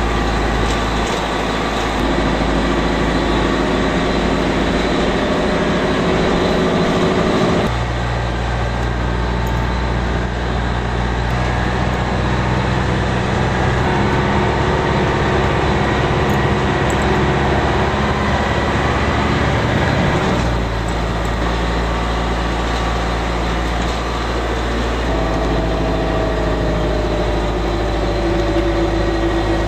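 Bus engine running with road noise, heard from inside the passenger cabin as it drives along; the engine note shifts suddenly about a quarter of the way in and again twice later.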